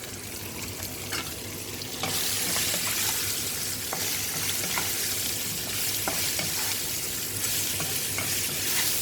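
Hot oil sizzling in a pan as sliced bitter gourd (karela) goes into a tempering of chana dal and urad dal. The sizzling jumps suddenly louder about two seconds in and carries on densely, with small scattered pops and crackles.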